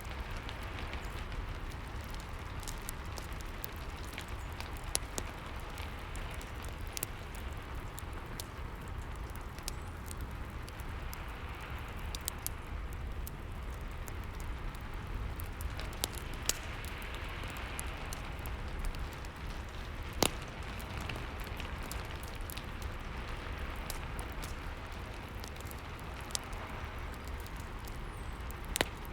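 Rain and crackling fireplace ambience: a steady rain hiss over a low rumble, with scattered sharp crackles and pops from the fire. The loudest pop comes about twenty seconds in.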